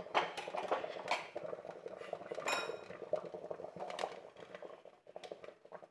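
A metal spoon clinking against the aluminium pressure cooker and its inner steaming pan while the steamed sticky rice is checked: a few sharp clinks, one ringing on about two and a half seconds in. Water bubbles faintly in the cooker underneath.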